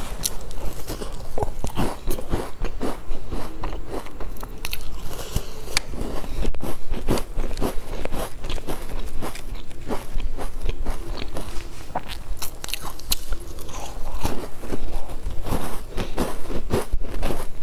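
Biting and chewing a large crumbly sesame-topped cookie, close to a clip-on microphone: a dense, irregular run of crisp crunches.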